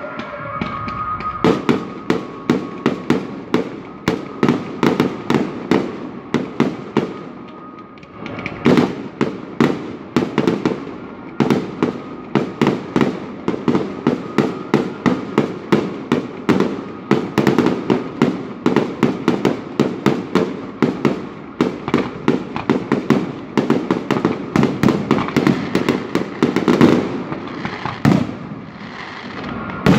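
Fireworks display: a rapid, continuous barrage of bangs and crackles, about two to three reports a second, with a short lull about eight seconds in and another just before the end.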